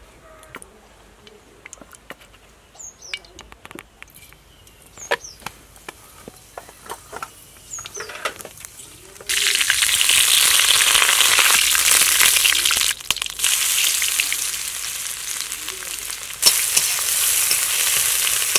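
Scattered light clicks and knocks, then about nine seconds in a sudden loud sizzle as bay leaves and dried red chilli hit hot oil in an iron kadai. The sizzle carries on, jumping up again near the end as sliced onions fry and are stirred with a metal spatula.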